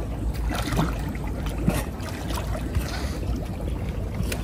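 Lake water sloshing and trickling as a giant Mekong catfish is held and turned by hand in waist-deep water, with a few small irregular splashes over a steady low rumble.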